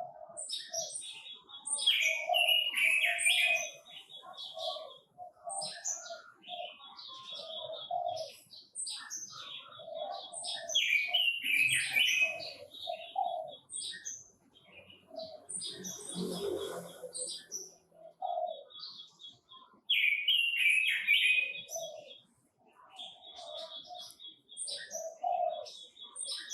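Red-billed leiothrix singing loud, fast warbling phrases in repeated bouts, with a brief rustling flutter about two-thirds of the way through.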